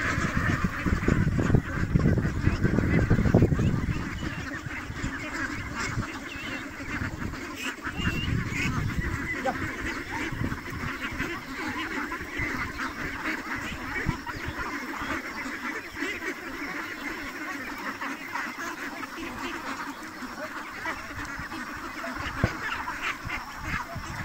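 A large flock of domestic ducks quacking all at once, a dense, continuous chatter of overlapping calls as the birds are driven along on foot. A low rumble sits under the calls for the first few seconds.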